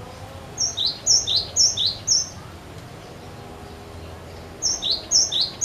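Cinereous tit (glatik batu) singing: a clear two-note phrase, high then lower, repeated about twice a second in two runs, four times in the first run and again about four and a half seconds in.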